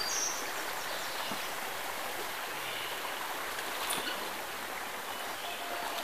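Steady rush of flowing water, with a couple of faint ticks about a second in and again near the middle.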